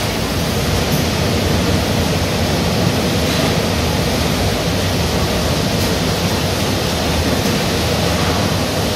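Steady industrial noise on a hog-processing line: an even rushing hiss with a low hum underneath, with no distinct knocks or clanks.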